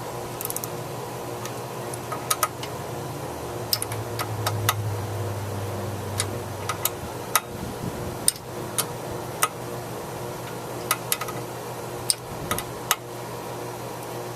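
Scattered sharp metallic clicks, single and in pairs, of a wrench or ratchet tightening the new carburetor's mounting nuts on a push mower a little at a time. A steady low hum runs underneath.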